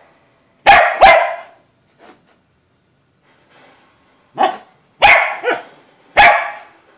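Pembroke Welsh Corgi barking: a quick pair of sharp barks about a second in, then a run of four more barks from about four and a half seconds on.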